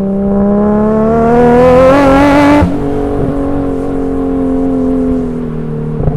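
Twin-turbo RB26 inline-six of a 500 hp GT-R-swapped Nissan 240SX accelerating hard, its note rising for about two and a half seconds, then dropping suddenly as the throttle closes. The revs then fall slowly for the rest of the stretch.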